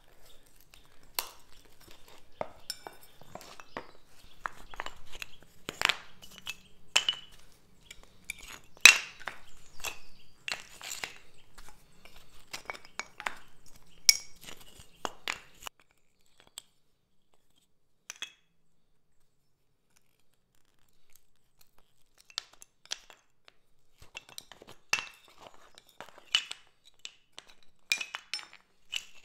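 Hand pry bar levering glued wooden parquet blocks up off a bitumen adhesive bed: a run of sharp clicks, scrapes and wooden clacks as blocks pop loose and knock together. The clacks stop for a few seconds midway, then start again.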